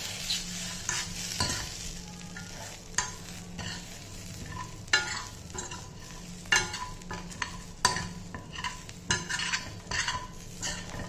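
Metal spoon scraping and clinking against a stainless steel kadai in irregular strokes, stirring steamed samba wheat balls through a tempering of mustard seeds and dal, over a low sizzle of the hot oil.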